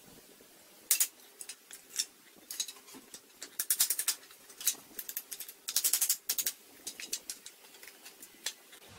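Hand tool striking pallet wood, most likely a hammer: sharp, irregular taps starting about a second in, some single and some in quick runs of many strikes.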